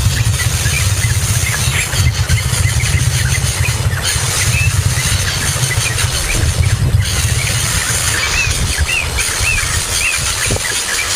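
A young songbird giving short high chirps, scattered at first and more frequent from about eight seconds in, over a steady low rumble that is the loudest sound throughout.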